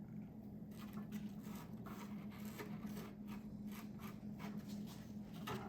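Small scrapes and clicks of hand work at a workbench, coming in quick irregular runs from about a second in, over a steady low hum.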